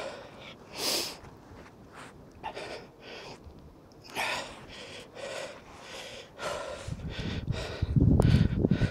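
A person breathing hard in short gasps and puffs. Over the last two seconds a loud low rumble of wind or handling noise on the microphone takes over.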